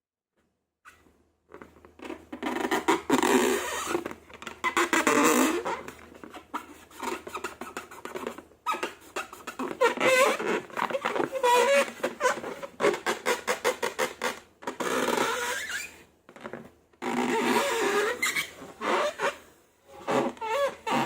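Squeaky, fart-like squeals of air being squeezed out of balloons and through slime, their pitch wobbling, mixed with quick crackling squelches. They come in uneven clumps from about a second and a half in.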